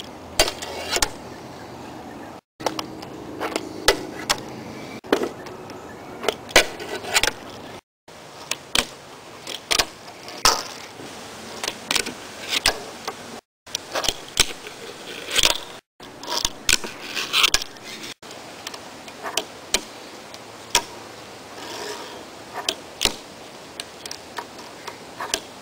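Fingerboard on a wooden plank: sharp clacks of pops and landings, wheels rolling on the wood, and trucks scraping along a metal box and rail. Short takes joined with several abrupt cuts.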